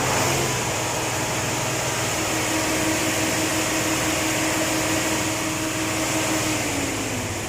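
Fuso 8M20 V8 diesel engine running steadily at raised speed, its pitch stepping up at the start and falling away near the end as the revs drop back.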